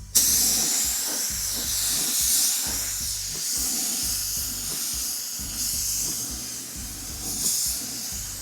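Gravity-feed paint spray gun spraying primer: a steady air hiss that starts sharply with the trigger pull and cuts off at the end.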